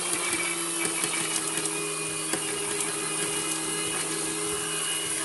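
NutriBullet blender motor running steadily, chopping sautéed garlic, with small ticks of pieces hitting the cup. The unit is tilted and shaken as it runs so the small garlic pieces get back down to the blades.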